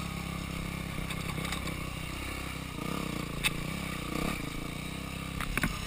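Dirt bike engine running at low revs, blipped up briefly twice, about three and four seconds in, with a few sharp clicks and clatters.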